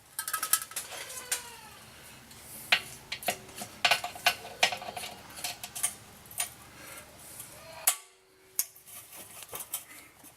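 Metal parts clinking and scraping by hand: an irregular run of sharp metallic clicks and knocks, some with short ringing, as swing arm bearing parts are worked into place. One louder click comes near the end.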